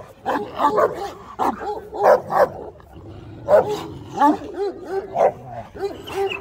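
Large dogs barking in a quick run of short barks, about three a second, with a brief pause a little before the middle.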